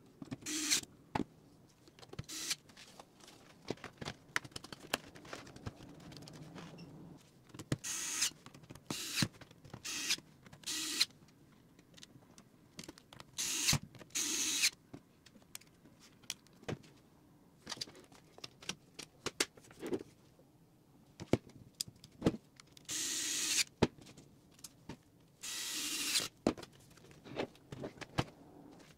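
Cordless electric screwdriver running in about nine short bursts of half a second to a second, driving small screws into a laptop chassis, with sharp clicks of screws and parts being handled in between.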